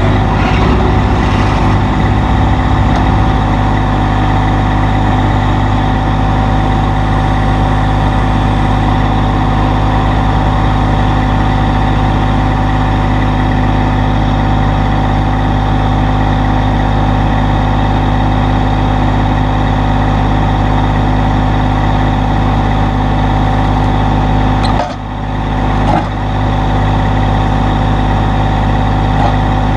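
Massey Ferguson GC1720 sub-compact tractor's diesel engine running steadily at a constant speed, with a steady high whine over it. About 25 seconds in the sound briefly dips, and a short click follows a second later.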